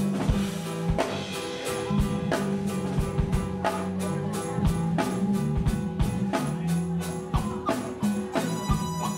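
Live band playing an instrumental groove: a drum kit keeps a steady beat over held electric bass notes, with keyboard in the mix.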